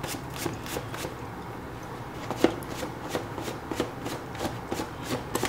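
Lint roller rolled over black cloth, its sticky sheet crackling in a string of small, irregular clicks.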